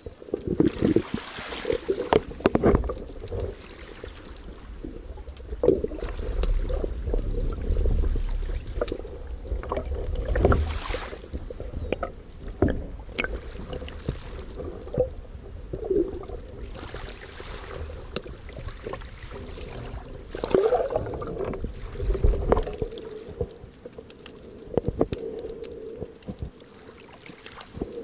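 Water rushing and bubbling, heard underwater through an action camera's housing, with uneven low rumbling surges and scattered sharp clicks and knocks.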